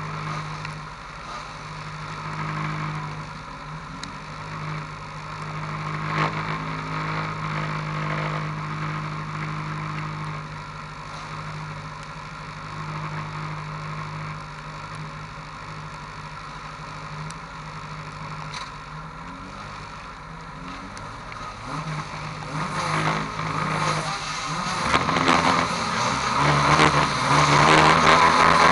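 Dirt-track race car engines idling steadily on the start line. From about 24 seconds in, the engines are revved up and get louder, with rising pitch, as the cars prepare to start.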